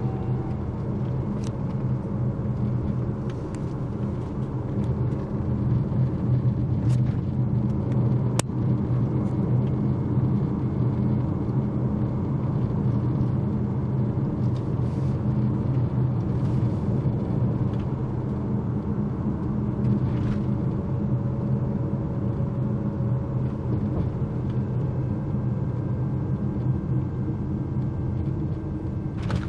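Steady road and engine rumble heard inside a moving car's cabin, with a few faint clicks.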